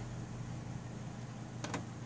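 A steady low background hum, with two faint clicks about three-quarters of the way through from a hand tool tightening a license-plate bolt into a rivet nut in a plastic bumper.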